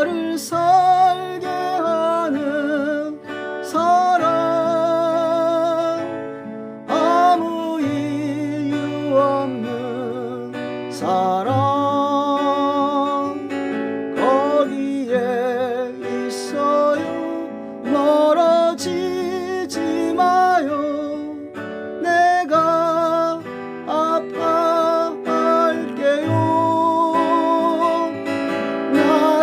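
Acoustic guitar playing a slow ballad accompaniment, with a wavering melody line over it that has vibrato and notes that slide up into pitch.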